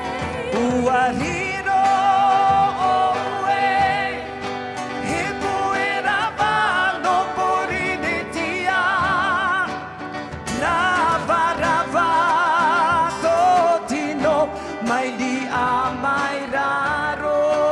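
Tahitian song sung over instrumental accompaniment, the voice holding long notes with a wide vibrato.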